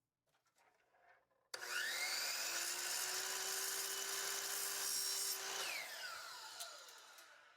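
Chop saw with a woodworking blade cutting an aluminum light track. It starts about a second and a half in and spins up with a rising whine. It runs steadily through the cut, then winds down with a falling whine near the end.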